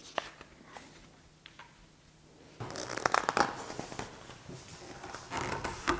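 A page of a hardcover picture book being turned: a quiet pause, then paper rustling from about two and a half seconds in.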